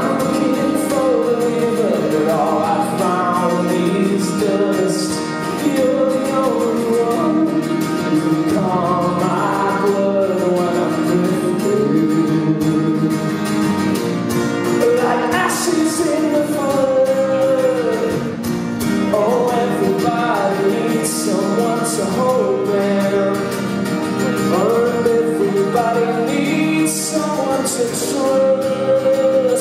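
A live song: singing over a played acoustic guitar.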